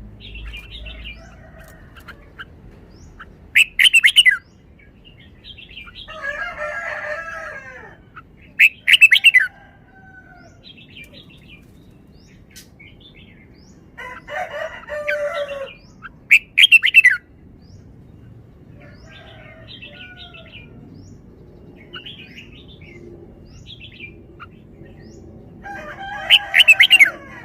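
Red-whiskered bulbul singing: four loud, short whistled phrases spaced several seconds apart, with quieter birdsong and calls between them.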